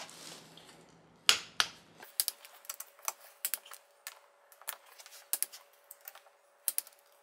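Torque wrench ratcheting on the bolts of the BMW X5 E53 transfer case, with sharp clicks at an irregular pace of a few per second, as each bolt is checked to 12 foot-pounds. Two louder clicks come about a second in.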